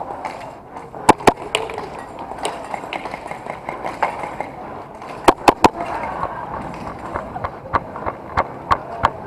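Airsoft guns firing: two sharp shots about a second in, a quick string of three about five seconds in, then a run of lighter, irregular shots near the end.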